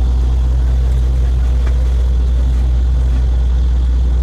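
Truck-mounted borewell drilling rig's engine running steadily, a loud deep hum with no change in speed.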